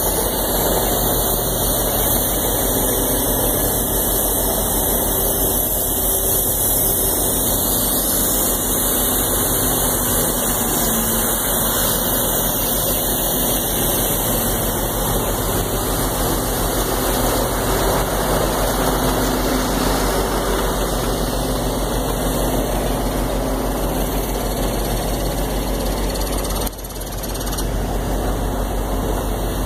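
Heavy diesel machinery of a horizontal directional drilling rig set-up, the Ditch Witch JT60 drill and an Atlas Copco air compressor, running loud and steady.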